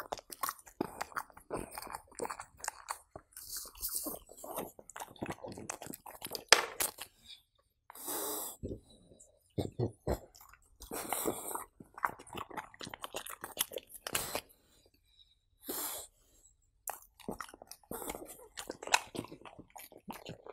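French bulldog chewing soft cooked pumpkin and cheese: wet, crunchy chewing and mouth clicks in quick irregular runs, with a few short hisses between bites.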